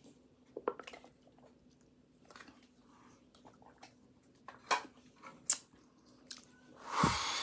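A person chewing and biting pastry close to the microphone: soft wet mouth sounds with a few sharper clicks. A loud rushing sound starts near the end.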